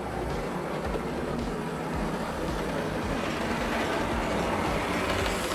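Vintage Lima HO-scale BR 151 model locomotive running on the layout track: a steady whirring rattle from its ring-field motor, gears and wheels on the rails, growing slightly louder toward the end.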